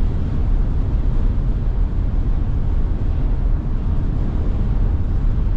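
Steady low rumble of wind and road noise inside a Tesla Model Y's cabin at highway speed, with strong gusting wind buffeting the car.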